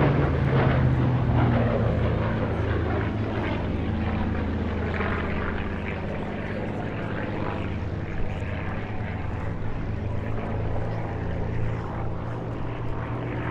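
Hawker Hurricane Mk I's Rolls-Royce Merlin V12 piston engine running at display power as the fighter climbs through an aerobatic manoeuvre overhead. It is a steady propeller-aircraft engine note that gradually gets quieter.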